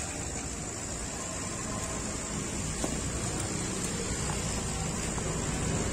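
Steady low background rumble with a constant faint hiss, and a few soft clicks as a cardboard packing sheet is handled on a radiator.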